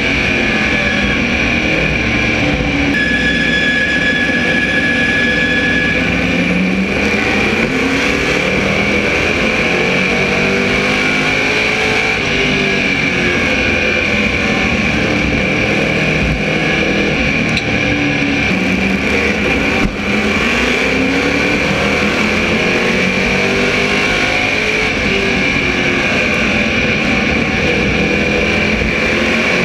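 SK Modified race car's small-block V8 at race pace, heard on board: the engine note drops going into each turn and climbs again down the straights, lap after lap.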